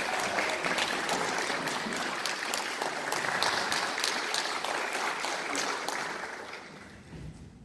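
Audience applauding, a dense clatter of many hands clapping that fades away over the last second or two.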